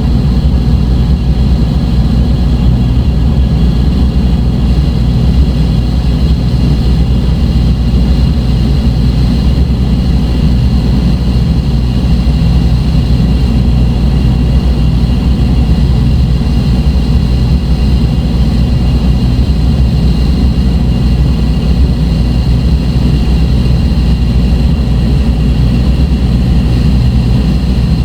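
Dark ambient electronic drone: a loud, steady low rumble with a thin layer of high sustained tones above it, with no beat and no change.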